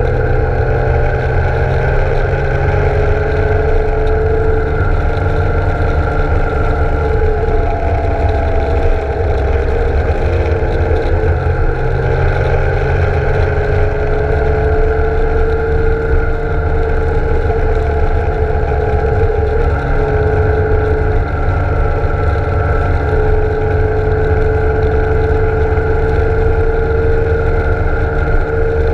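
BMW K1600 GTL inline-six engine running at road speed, its pitch easing down and back up about a third of the way in as the bike takes the curves, over heavy low wind rumble on the microphone.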